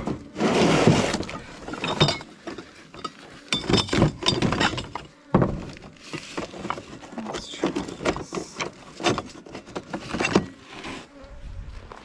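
Gear being rummaged through in a pickup truck bed: a plastic crate, jars and tools knock, scrape and clatter against the bed liner in irregular bursts, the loudest in the first second or so.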